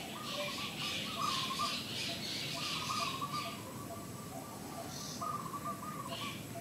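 Birds calling: short wavering whistled phrases repeated several times, with a busy chatter of higher chirps over the first half.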